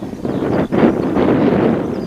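Wind buffeting the microphone, rising and falling in gusts, over a small hatchback car driving toward it.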